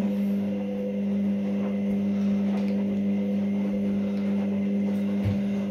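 Front-loading washing machine running mid-cycle: a steady mechanical hum with a low, even pitch. There is a soft bump near the end.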